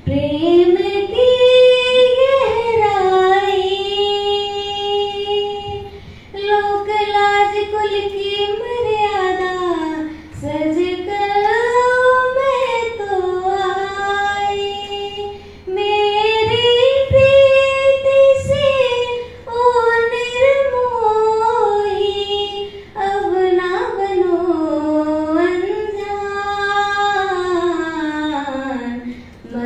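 A girl singing solo and unaccompanied into a handheld microphone, in long held notes that glide up and down, in phrases of several seconds with short breaks for breath.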